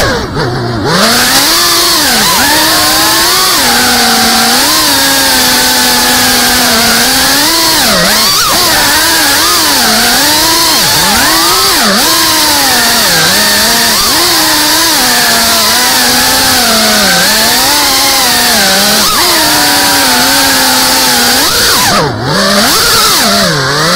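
Brushless motors and propellers of a CineLog35 FPV cinewhoop drone buzzing in flight over a hiss of rushing air, the whine rising and falling continuously with throttle. Brief dips in the sound where the throttle is cut, just after the start and twice again near the end.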